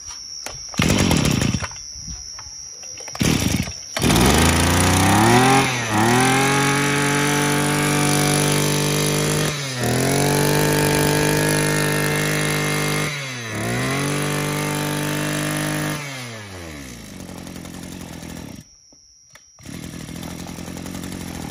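Maruyama 20cc two-stroke brush cutter engine pull-started, catching about four seconds in and revving up. It runs at high revs with two brief dips, then is switched off and winds down.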